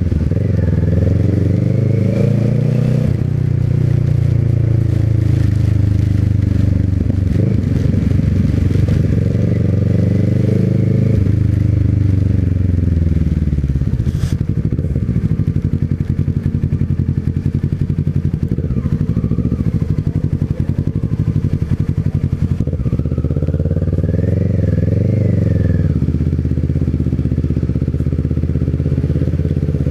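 Small motorcycle engine running under way, its revs climbing and dropping several times as the rider accelerates and eases off. There is a single sharp click about fourteen seconds in.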